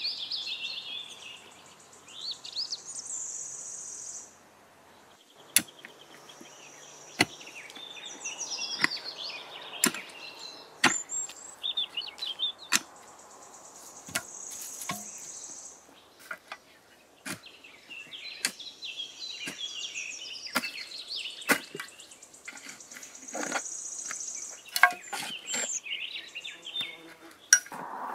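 A hoe chopping into dry forest soil: irregular sharp thuds and knocks, starting about five seconds in, as the ground is broken up. Birds chirp and trill in the background throughout.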